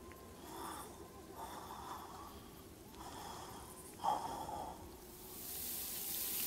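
Cartoon lizard's voiced panting: four breathy pants about a second apart, the last the loudest, then a hiss rising near the end.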